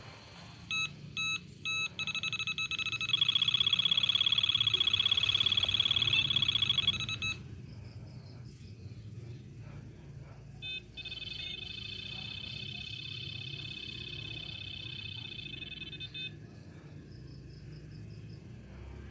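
An electronic buzzer sounds two short beeps, then a long, rapidly pulsing high tone for about five seconds. After a pause of about three seconds, a second long tone follows, over a steady low hum.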